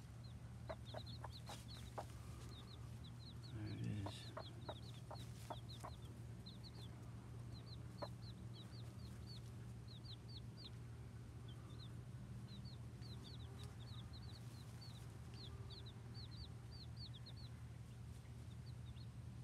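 Leghorn chicks, a few days old, peeping in short high chirps, several a second and off and on, while the broody Leghorn hen gives a low cluck about four seconds in.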